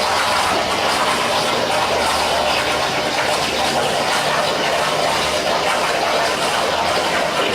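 CNC plasma cutter torch cutting steel, a steady loud hiss with a faint low hum beneath.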